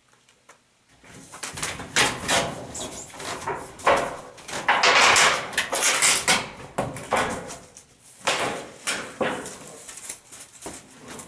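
Irregular wooden knocks, bumps and scraping rubs of wood being handled, with a longer rough scrape about five seconds in.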